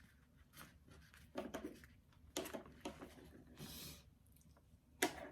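Faint, scattered rustles, crinkles and light taps of a diamond painting canvas and its packaging being handled, with a slightly longer rustle near the middle.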